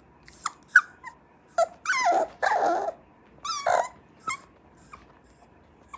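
Cocker spaniel puppy whining: a run of about ten short, high-pitched whines with sliding pitch, the longest and loudest in the middle, fading toward the end.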